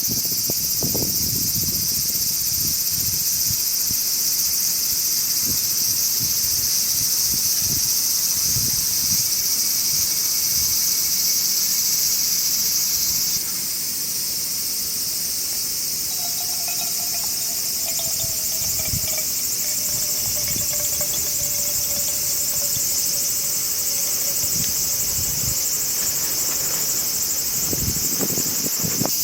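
Dense, steady chorus of summer insects chirring, shrill and high-pitched; its level drops slightly about 13 seconds in, and a faint, slowly falling tone passes underneath midway.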